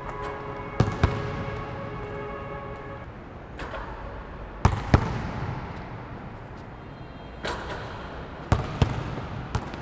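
Basketballs bouncing on a hard indoor court floor, echoing in the hall: sharp thuds, mostly in quick pairs, three times over the stretch with one more near the end.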